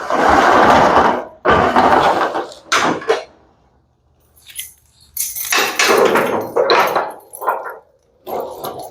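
Several bursts of rattling, scraping clatter from things being handled, each lasting up to about a second, with a short lull about halfway through.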